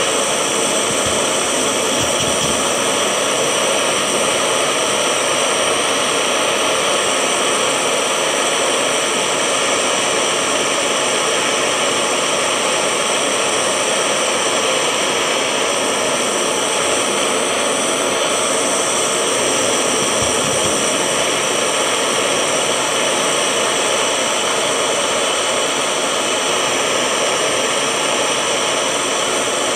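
Handheld butane gas torch burning steadily with a loud, even hiss, its flame played into a crucible to melt silver scrap.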